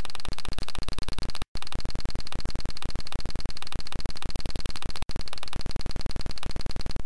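Rapid, even clicking, about ten sharp clicks a second, cut off dead for an instant twice.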